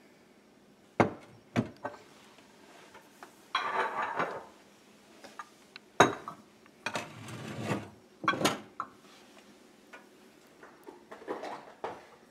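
Glass food-storage bowls being handled, nested and set down on a kitchen cabinet shelf: several sharp clinks and knocks, with short stretches of scraping and rattling between them.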